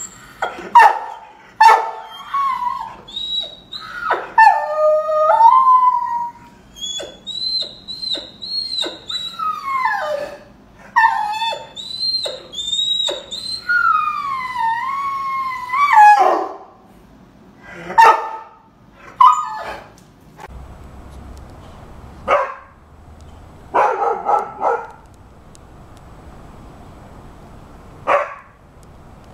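Rhodesian Ridgeback barking and howling. A run of sharp barks gives way to long, high howls that rise and fall, mixed with barks, and then to scattered single barks with pauses between them.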